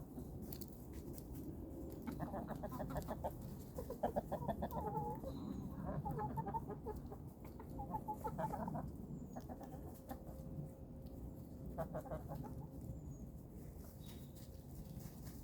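Chickens clucking in short bursts of rapid clucks, several times over the stretch, over a steady low background noise.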